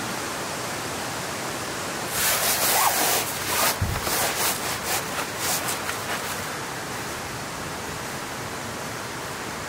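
Steady hiss of rain. From about two seconds in, a few seconds of crackly rustling, with a soft thump partway through.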